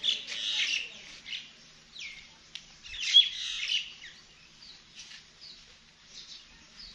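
Birds chirping and squawking, many short overlapping calls, busiest at the start and again about three seconds in, then thinning out to scattered faint chirps.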